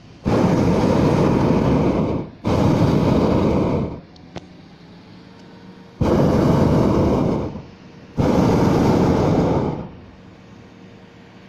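Hot-air balloon's propane burner firing in four blasts of one and a half to two seconds each, in two close pairs with a pause of about two seconds between the pairs.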